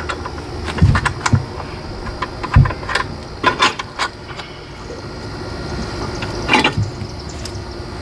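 Scattered clicks, clinks and a few dull knocks of hands working a stern-mount anchor bracket and its screws onto an outboard motor mount, over a faint steady hum.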